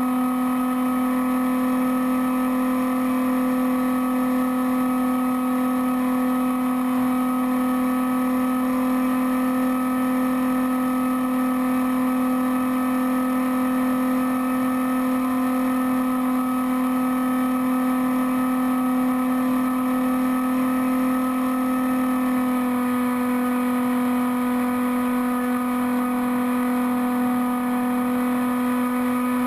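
Electric motor and pusher propeller of a Bixler foam RC plane droning at steady cruise throttle, picked up by a camera on the plane; the pitch shifts slightly about 23 seconds in.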